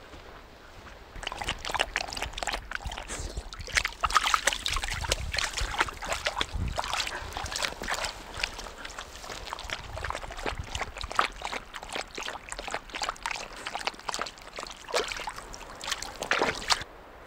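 A dog wading through a shallow, trickling bog stream: irregular splashing, sloshing steps in the water. The splashing starts about a second in and stops abruptly near the end.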